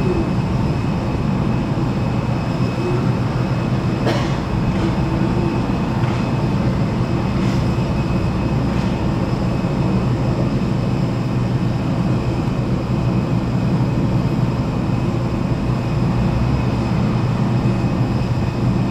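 Steady, unbroken drone of airport ramp machinery beside a parked airliner, a low hum with a faint high whine held over it, and a few light knocks about four to nine seconds in.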